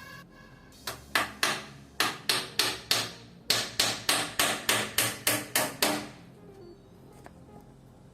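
Hammer driving nails into plywood on a chair frame: about eighteen sharp blows in three quick runs, roughly three a second, stopping about six seconds in.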